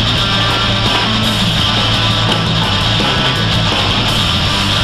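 Loud heavy rock music with electric guitar.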